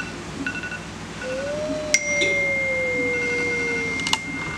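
iPhone timer alarm going off, signalling that the bread's hour in the oven is up: short chiming beeps repeat, then about two seconds in a long steady high tone starts, along with a lower tone sliding slowly down. A few sharp clicks come near the end.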